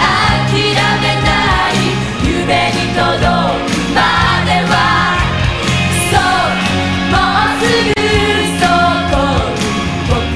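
Upbeat Japanese pop song from a stage musical, sung by a small vocal group over a band with steady bass notes.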